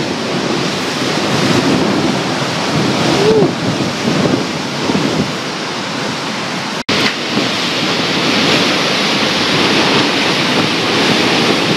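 Tropical-storm wind and heavy rain rushing steadily, the wind buffeting the microphone. The sound cuts out for an instant about seven seconds in.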